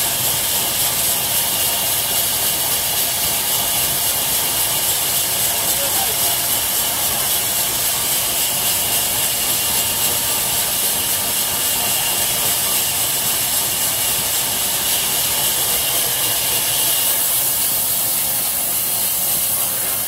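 Belt-driven vertical band saw at a log sawmill running, giving a loud, steady hiss.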